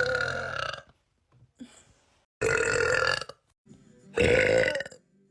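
A young woman burping loudly three times. The first burp runs on into about the first second, and two more follow, each under a second long.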